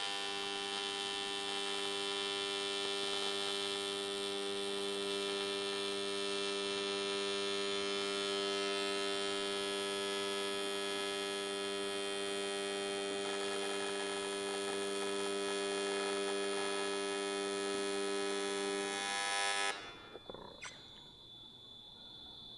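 Square-wave AC TIG welding arc on cast aluminum, buzzing steadily, then cutting off abruptly about three seconds before the end as the welder breaks the arc.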